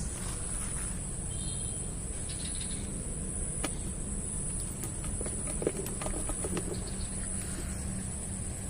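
Steady outdoor background: a low hum under a constant high-pitched whine, with a few faint clicks and a brief chirp.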